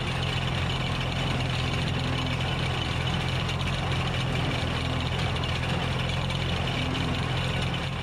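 Tractor engine running steadily, driving a New Holland wire-tie square baler through its PTO shaft while the baler works, running normally after its wire problem was fixed.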